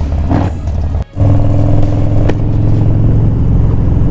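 Harley-Davidson Street Bob's air-cooled V-twin engine running steadily at low road speed in slow traffic. The sound drops out for a moment about a second in and comes back louder.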